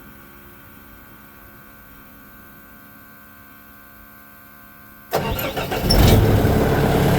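Diesel engine of a Vermeer BC1000XL wood chipper cranked by its starter about five seconds in, catching within a second and then running steadily at idle. Before the start there is only a faint steady hum.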